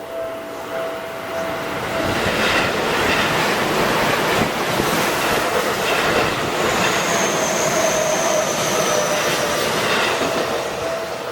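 A Seibu 30000 series electric commuter train passing over a level crossing, its wheels clacking over the rail joints, with a thin high squeal for a couple of seconds past the middle. The crossing's warning bell rings in steady pulses, is drowned out for most of the passage after about two seconds in, and is heard again near the end.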